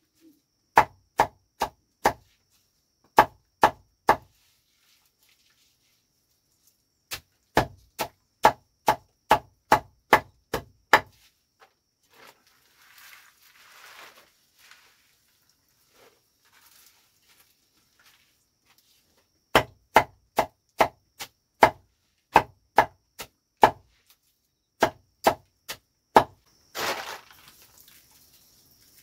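Sharp chopping strokes in quick runs of three to nine, about two a second. Between the runs, leafy greens and plastic sheeting rustle, with a loud rustle near the end.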